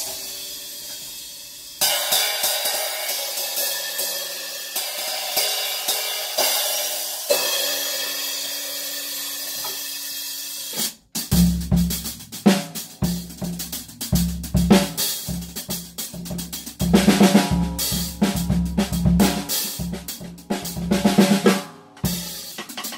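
Drum kit played with sticks. For the first ten seconds or so the cymbals ring in a steady wash. After a short break about eleven seconds in, bass drum, snare and toms play under them. The cymbals are Sabian cymbals newly fitted with split rivets, played to hear how the rivets change their sound.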